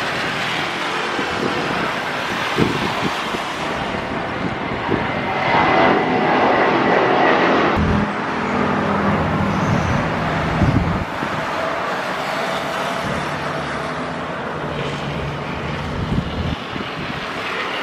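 Jet airliners' engines at takeoff thrust: a steady roar.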